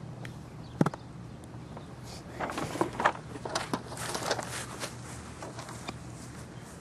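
Handling noise: a sharp knock a little under a second in, then a flurry of clicks and rustling from about two to four and a half seconds in, over a faint steady low hum.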